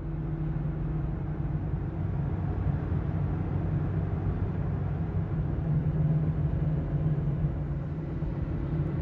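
Steady engine and road noise heard from inside a pickup truck's cab as it drives at highway speed, a constant low hum under tyre rumble.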